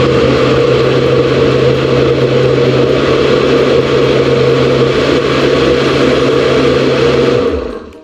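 Countertop blender running at a steady speed, puréeing a thick fruit smoothie, its motor giving a loud, even hum. About seven and a half seconds in it is switched off and winds down to a stop.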